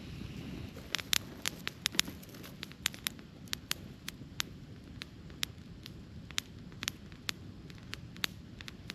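Wood campfire crackling: sharp pops and snaps begin about a second in, come in a quick cluster at first and then scatter irregularly, over a low steady rumble.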